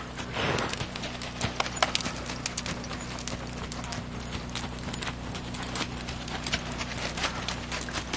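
Horse's hoofbeats on a dirt arena, a run of irregular sharp clicks, over a steady low hum.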